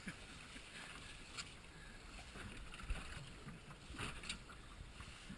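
Quiet ambience of a small aluminium boat at sea: a steady hiss of wind and water, with a few brief knocks about a second and a half in and again around four seconds in.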